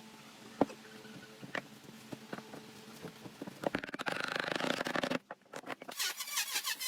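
Hand work on wood: a few scattered light knocks, then a couple of seconds of rapid scraping clicks about halfway in, cutting off abruptly. Electronic music with a busy beat starts near the end.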